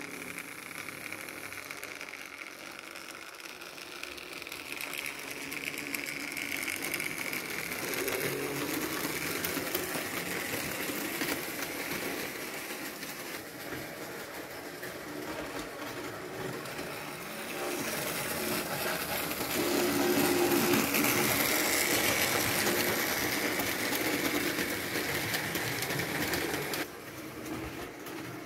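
Model electric train running on metal track: a small electric motor whirring with a steady whine and the wheels rattling along the rails. It gets louder about two-thirds of the way through and drops back suddenly near the end.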